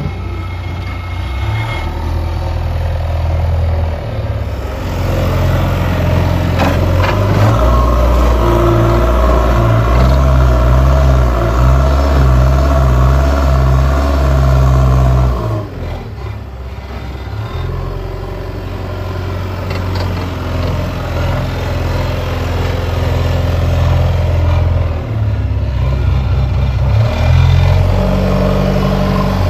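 Diesel engine of a JCB 3DX backhoe loader running under load while lifting and dumping earth, its low note stepping up and down every few seconds as it revs. The note shifts abruptly about four seconds in and again about halfway through.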